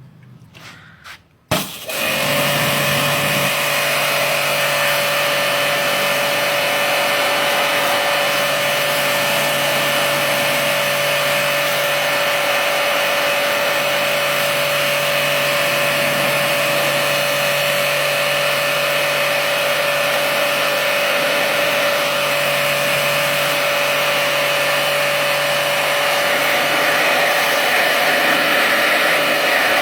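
An electric motor-driven machine switched on with a click about a second and a half in, then running steadily with a loud rushing whir and a steady whine over a low hum.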